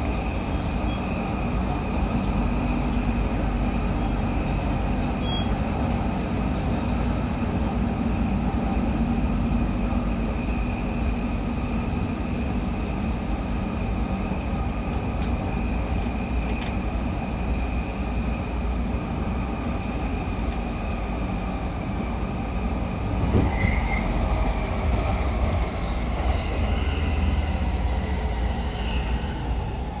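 Onboard running sound of a JR East 209 series electric train, heard inside motor car MoHa 209-1004 while under way: steady rolling and rumble with a low hum and thin high whining tones from the drive. A louder knock comes about two-thirds of the way through.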